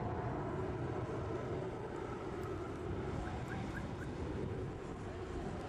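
Steady low rumble of jet airliner engines idling at an airport.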